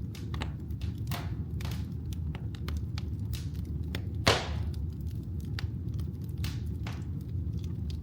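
Wood fire burning in a fireplace: a steady low rumble with scattered crackles and pops, one loud pop a little after four seconds in.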